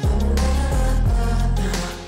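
Background music with a steady beat and deep bass drum hits.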